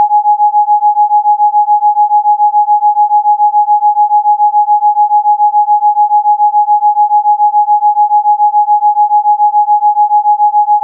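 Electronically generated Rife frequency tone: a single steady pure tone, pulsing rapidly and evenly in loudness. It is played as a supposed remedy for chicken pox.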